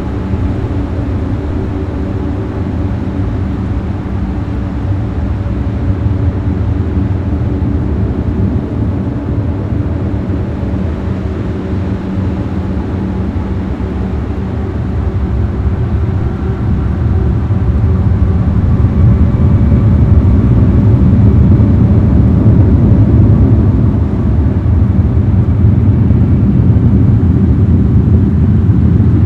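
A low, steady droning rumble with several held tones over it, swelling louder about two-thirds of the way in.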